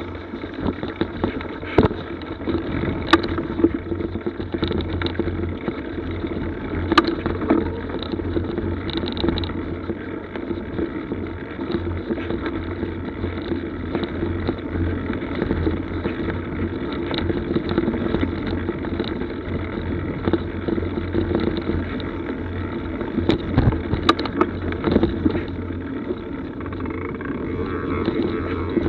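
Mountain bike rolling over a muddy forest trail, heard through an action camera's microphone: a steady rumble of tyres on dirt, with a few sharp knocks and rattles as it goes over bumps.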